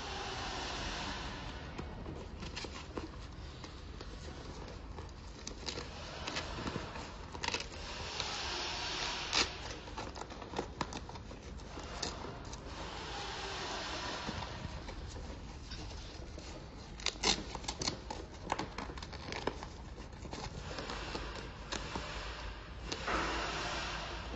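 Fabric rustling and crinkling as a plaid cloth front basket bag with a wire rim is handled and fitted to bike handlebars, with scattered sharp clicks from its frame and fastenings.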